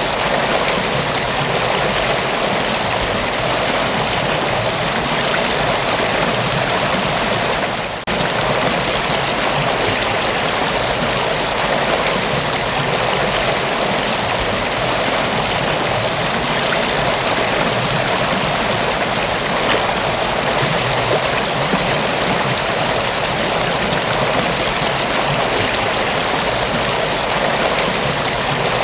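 Mountain waterfall: a steady, even rush of falling water, with one brief dip in level about eight seconds in.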